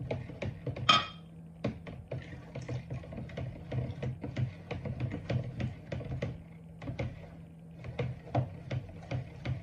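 A utensil stirring tamarind water in a container, clicking and knocking against its sides about four times a second, with one louder ringing clink about a second in.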